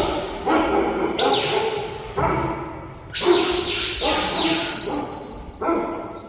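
New Zealand Huntaway sheepdog barking hard and repeatedly, the deep bark it is bred for to drive sheep. A high steady sheepdog-whistle note sounds about four and a half seconds in and again near the end.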